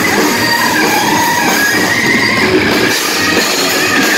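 A rock band playing live: an electric guitar lead with wavering notes over bass guitar and drums, loud.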